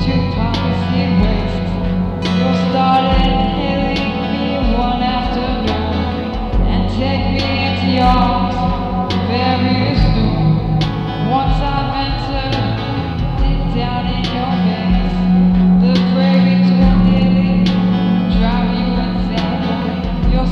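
A rock song played by a band with guitar, bass and a steady beat.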